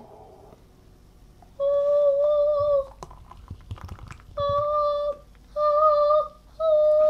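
A person humming four long, steady notes at about the same pitch, like a drumroll tune, while a thick chocolate protein shake pours from a shaker bottle into a glass, with faint glugs between the second and third notes.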